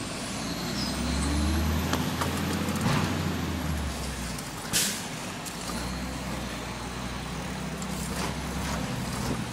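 Garbage truck engine running close by, its low hum rising and falling, with a short, sharp air-brake hiss about five seconds in.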